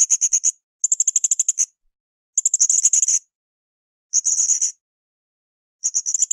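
Blue-crowned hanging parrot (srindit) calling: five short bursts of rapid, high-pitched chattering notes, each under a second long, with silent gaps between them.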